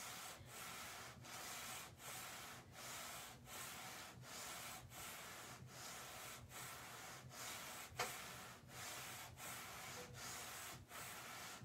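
Cricut EasyPress heat press being slid back and forth over parchment paper on a fabric banner: faint, even rubbing swishes, about two strokes a second, with one small knock about eight seconds in.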